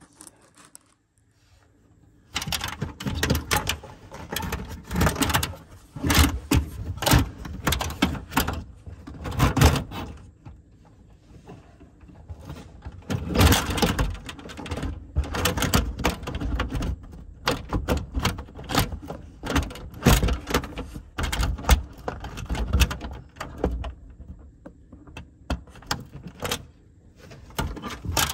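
Handling noise from a phone pressed close against car panels: irregular rubbing, taps and knocks right at the microphone as a cover is lowered over it, starting about two seconds in.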